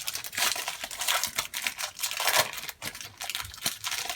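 Wrapper of a football trading card pack being torn open and crinkled by hand: a dense run of crackling and snapping.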